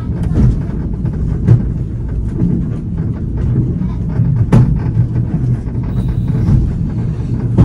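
Funicular car rolling down its track: a steady low rumble of the wheels on the rails, with a few sharp clacks.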